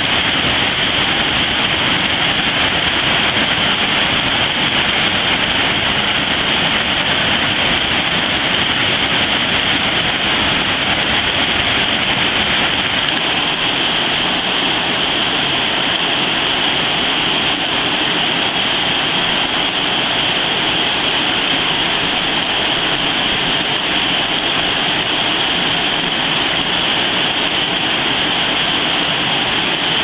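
Waterfall and fast-flowing stream water rushing over rocks: a loud, steady rush, with a slight change in tone about thirteen seconds in.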